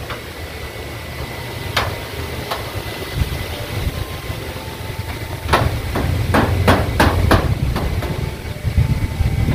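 Hammer driving nails into corrugated zinc roofing sheets: two strikes about two seconds in, then a quick run of about six blows from about five and a half seconds in. Wind rumbles on the microphone throughout.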